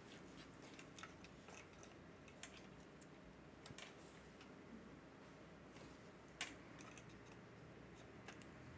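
Faint, sparse clicks and taps of a DDR4 laptop RAM stick (SO-DIMM) being handled and pressed into its slot in a mini PC, with one sharper click about six and a half seconds in as the module clicks into place.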